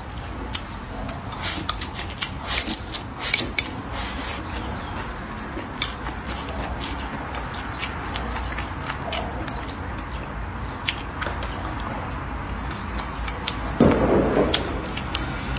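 Close-up eating sounds: chewing and small sharp clicks of wooden chopsticks against a ceramic plate. Near the end a louder rushing noise sets in.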